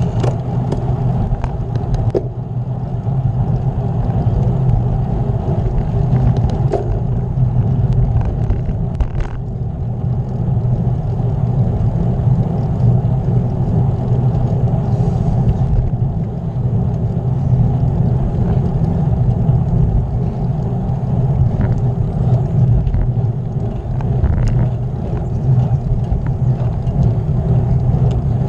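Steady low rumble of wind buffeting a camera microphone and tyre noise from a bicycle riding on the road, with a few faint ticks in the first ten seconds.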